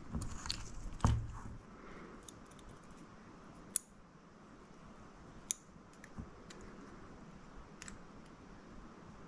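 Small handling sounds of tweezers and tiny parts being worked on a small FPV drone frame: a knock about a second in, then a few scattered sharp clicks over faint rustling.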